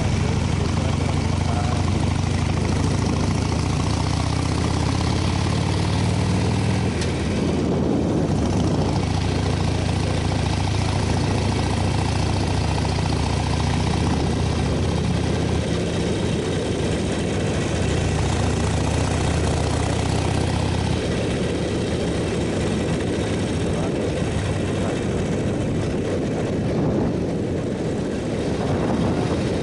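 Motorcycle engine running steadily while riding, with wind rushing over the microphone; the engine note shifts about a quarter of the way in and again about two thirds of the way through.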